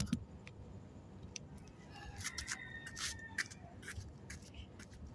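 A sharp knock as the phone is handled and set down. It is followed by a low outdoor background with scattered faint clicks and taps.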